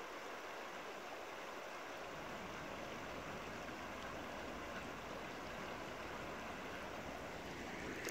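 River water running over a shallow, stony riffle: a steady rushing hiss.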